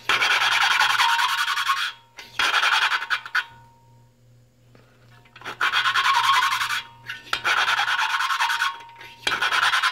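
Valve lapping: a suction-cup lapping stick spun back and forth between the palms, grinding a Briggs & Stratton L-head engine's exhaust valve against its seat with abrasive lapping compound. It comes as gritty rasping strokes in five bursts, with a pause of about two seconds in the middle.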